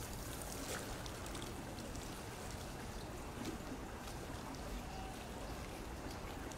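Steady trickling and lapping water with small scattered splashes, from a polar bear paddling through its pool.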